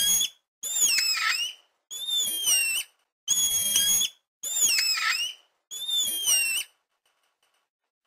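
Spider monkey whinny calls: a string of high-pitched calls, each about a second long, following one another with short gaps, then stopping about a second before the end.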